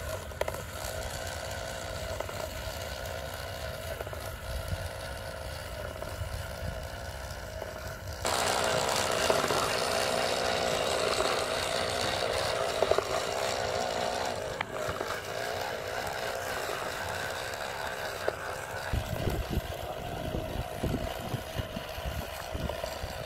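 Small electric motor of a miniature DIY sowing machine running steadily with a whine as it drives the machine along through its gearing and sprocket wheels. It gets louder about eight seconds in, and low knocks join it near the end.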